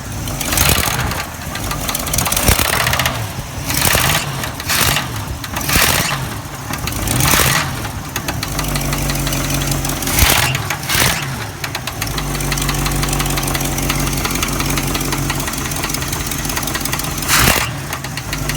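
Oldsmobile 455 V8 engine revved up and down several times, then settling to a steady idle about halfway through, with a brief blip shortly after. The owner is trying to capture a knock that he places at the top rear of the engine.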